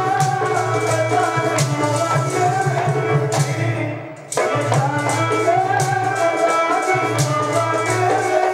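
Devotional music: sustained harmonium tones over a steady, quick percussion beat. It fades briefly and cuts back in sharply about four seconds in.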